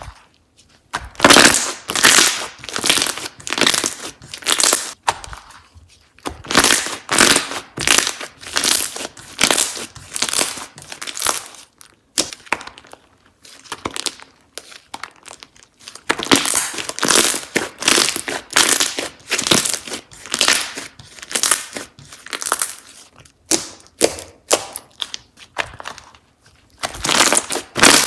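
Slime being squeezed, folded and pressed by hand, making rapid crackling, crinkling pops in waves with short pauses between them.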